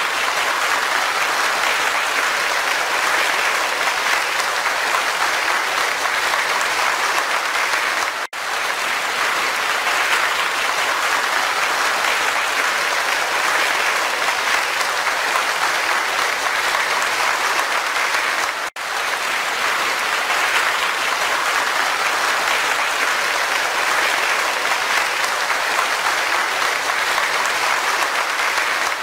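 Steady applause from a crowd, an even clapping hiss that cuts out for a split second twice.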